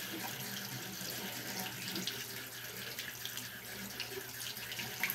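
Bathroom sink faucet running steadily, its stream splashing over a small plastic doll held under it and into the basin.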